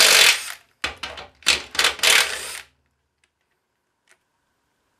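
Cordless drill spinning a 9/16-inch socket in short, rattly bursts, backing out a rusted engine mounting bolt from a steel lawnmower deck until the bolt comes free. The bursts stop a little under three seconds in.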